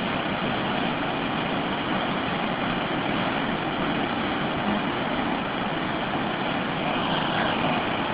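A river in flood rushing past the bank: a steady, dense noise of churning water.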